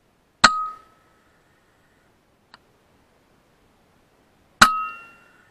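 Two shots from a suppressed FX Impact M3 .22 PCP air rifle, about four seconds apart. Each is a sharp crack with a short metallic ring that dies away within half a second. A faint click comes between them.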